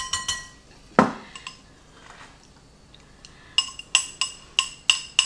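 Glass mixing bowls clinking as beaten eggs are poured from a small glass bowl into a large one. There are a few ringing clinks at the start, a duller knock about a second in, and then a run of ringing clinks, about three a second, near the end.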